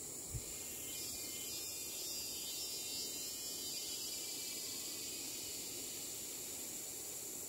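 Faint, steady outdoor background noise with a high, even drone, and one soft thump just after the start.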